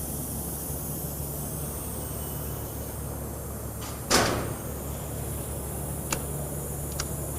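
Steady low machine hum from the twin paddle mixer, broken about four seconds in by one loud metal clank with a brief ring, typical of a flip-up mixer cover being moved during a safety-switch test. Two light clicks follow near the end.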